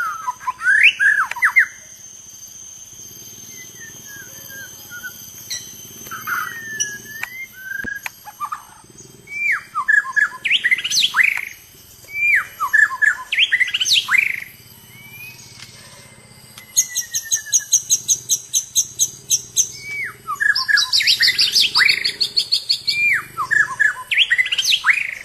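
White-rumped shama (murai batu) singing: phrases of loud, clear whistles that swoop up and down, separated by short pauses. Two runs of fast, high ticking notes come in the second half.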